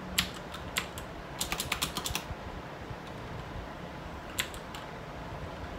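Computer keyboard being typed on in short bursts: a few single keystrokes, a quick run of keys about a second and a half in, then a pause and two more keystrokes near the end.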